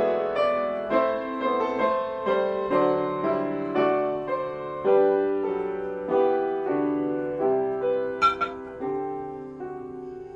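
Solo piano playing a slow, quiet hymn-like melody during communion. Each note fades after it is struck, and the playing slows to longer held notes after about five seconds.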